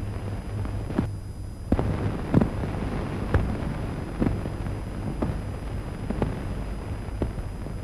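Hiss and low hum of an old optical film soundtrack between lines of dialogue, with faint clicks and pops about once a second.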